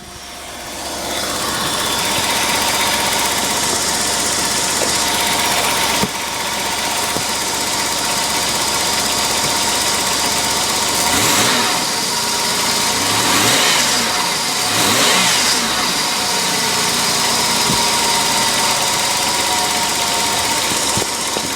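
1992 Holden VP Commodore engine idling, then revved briefly three times in the middle, the pitch rising and falling back to idle each time.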